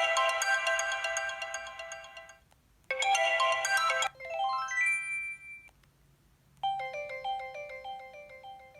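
Preloaded ringtones of a ZTE Z222 phone playing in turn through its speaker. One electronic melody fades out about two and a half seconds in, and a second starts half a second later and ends in a trail of fading notes. After a pause of about a second, a third, lighter melody of quick notes begins.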